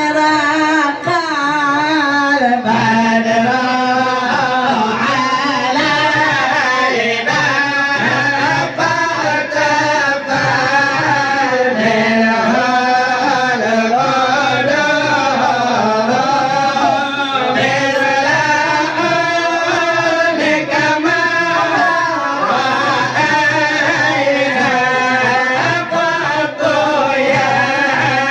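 Men singing syair, Malay-Acehnese sung poetry, into microphones through a sound system: a long, winding, chant-like vocal line.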